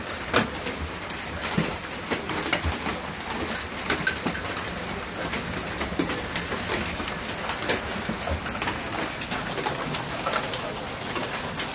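Hail and heavy rain pelting a porch roof and wooden deck: a steady hiss packed with dense, irregular sharp ticks of hailstones striking, with an occasional low thump.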